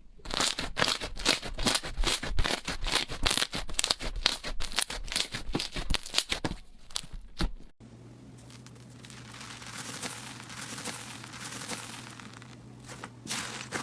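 Slime being squeezed and pressed by hand, making dense crackling, popping clicks. After about eight seconds it changes abruptly to quieter squishing over a low steady hum, and the crackling picks up again near the end.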